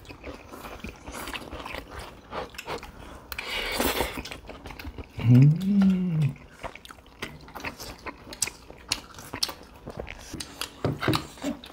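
People eating at a table: chewing, with scattered clicks of cutlery and dishes. A short hiss comes about 3.5 s in, and a low hum rises and falls about five seconds in.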